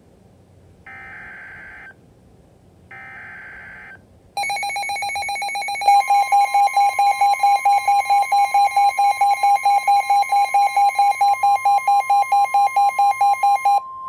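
NOAA Weather Radio emergency alert. Two roughly one-second bursts of the SAME digital header data sound from the radio speaker, a second apart. About four seconds in, the receivers start a rapid electronic pulsing alarm beep, and at about six seconds the steady 1050 Hz warning alarm tone joins it, which signals that a warning is being broadcast.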